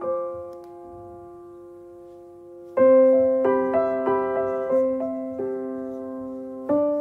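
Soft background piano music: a held chord fades away, then a louder chord comes in about three seconds in, followed by a slow line of single notes.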